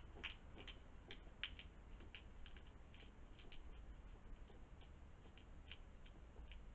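Hedgehog chewing food at a feeding dish: faint, irregular crisp clicks, thickest in the first three seconds and sparser after, over a low steady hum.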